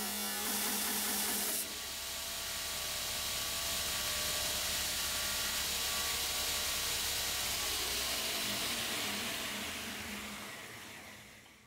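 Homemade 2x82-inch belt grinder with a 1.5 kW motor. For the first couple of seconds it grinds a steel bar, a harsh hiss of abrasive belt on metal. Then the belt runs on unloaded with a steady whir that fades away over the last few seconds.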